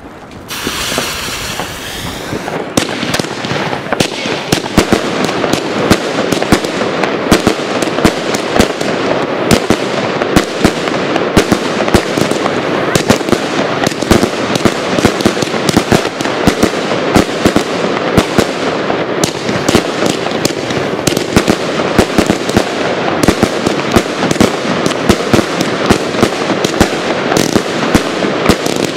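Royal Fireworks Thunder Flower, a 70-shot salute cake, firing: a couple of seconds of hissing, then a rapid, unbroken string of loud bangs.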